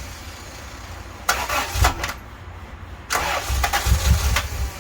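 Honda B16A engine being cranked in two bursts, trying to catch and backfiring a little; the owner takes this as a sign that the ignition timing is off.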